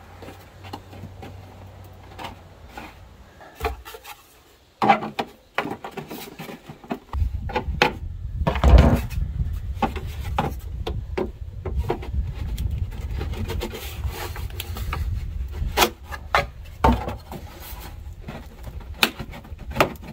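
Sheet-metal downspout sections being worked together by hand, the crimped end pushed into the next piece: the metal scrapes, rubs and clicks in irregular strokes. A low rumble runs under it from about a third of the way in.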